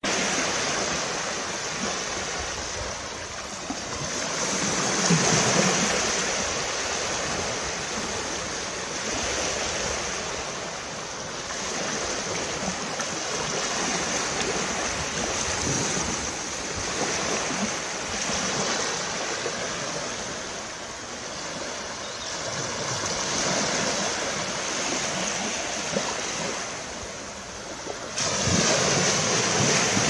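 Small waves breaking and washing up a sandy beach, the surf swelling and easing every several seconds, with a louder surge near the end.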